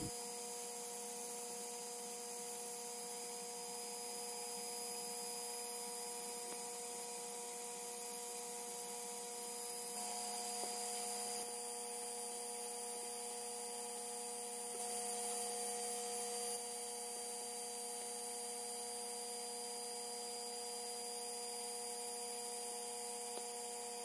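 xTool D1 Pro 40W diode laser engraver running while cutting thin basswood plywood: a steady hum made of several steady tones. It gets slightly louder twice around the middle.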